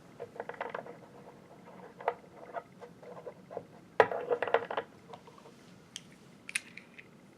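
Small parts of a knife-sharpener vise clicking and rattling lightly as they are handled and fitted, with a sharper click about four seconds in.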